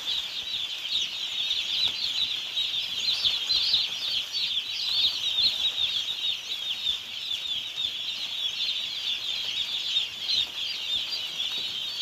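A large flock of young chicks peeping continuously: a dense chorus of many overlapping high-pitched cheeps.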